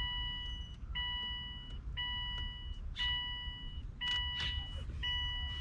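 A car's warning chime, a steady electronic tone repeating about once a second with short gaps, from the Subaru Baja while he works in the cabin. A few soft rustles and clicks of handling the headliner come over the second half.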